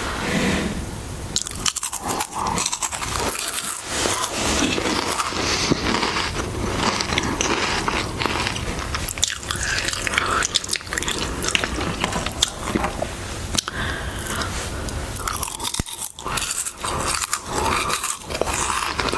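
Harvest Snaps green pea and black bean snack crisps being bitten and chewed close to the microphone: a dense run of sharp, irregular crackling crunches.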